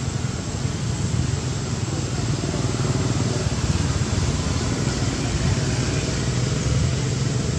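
Steady outdoor background rumble, an even noise strongest in its low end, with no clear call from the monkey.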